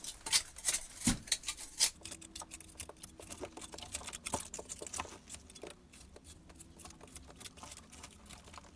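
Small plasterer's trowel scraping and picking back soft lime mortar between stones: a quick, irregular run of scratches and clicks.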